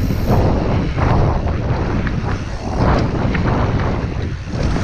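Wind noise on the microphone of an action camera on a mountain bike riding fast down a dirt trail, with tyre noise over the dirt and short knocks and rattles about once a second as the bike runs over bumps.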